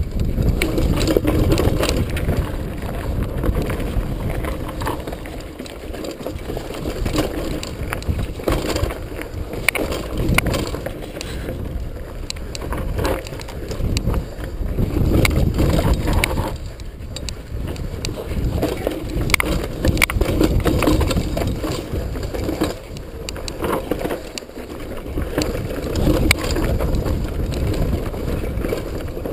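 Mountain bike riding down a rough, rocky dirt trail: a continuous rumble of tyres over dirt and stones that swells and fades, with many sharp rattles and clicks from the bike.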